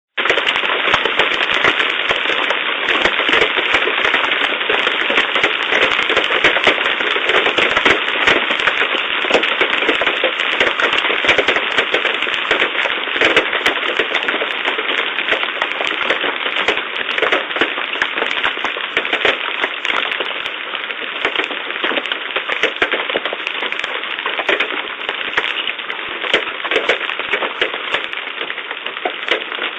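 Large hailstones pelting down and striking hard surfaces: a loud, dense, rapid clatter of impacts that thins a little near the end.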